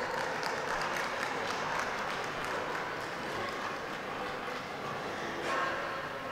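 Spectators clapping steadily, mixed with general crowd noise.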